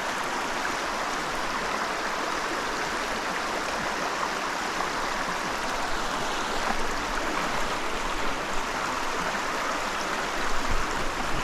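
Creek water running steadily over rocks, an even rushing noise with a few faint knocks in the second half.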